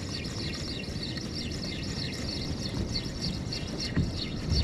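Wind rumbling on the microphone over water lapping against a fishing kayak, with faint rapid high ticking throughout.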